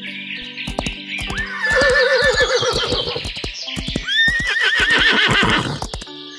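Horse whinnying twice, about a second and a half in and again about four seconds in, a wavering call that falls in pitch, over clopping hoofbeats and background music.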